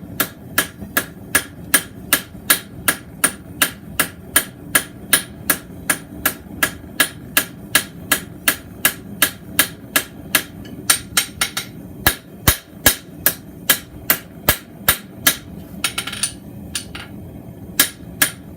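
Ball peen hammer striking hot mild steel bar on an anvil at a steady pace of about three blows a second, each with a sharp metallic ring, drawing out the lobes of a spade shape. The blows pause briefly near the end, then a few more follow.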